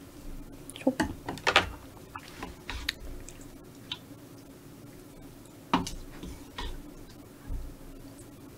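Wooden spoon scooping thick, saucy spicy stir-fried squid from a metal pan and dropping it onto noodles in a ceramic bowl: scattered clicks, scrapes and wet plops, busiest about a second in and again around six seconds.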